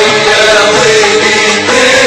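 Libyan ma'luf music: a male chorus chanting a melody in unison over an oud and ensemble accompaniment, with no break.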